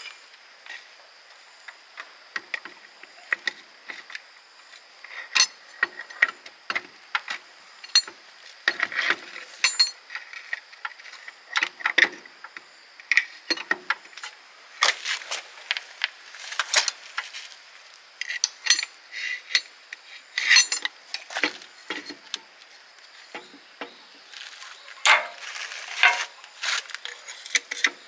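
Irregular metallic clinks and clicks of hand tools and steel gearbox parts being handled during a transmission teardown or repair, some in quick clusters.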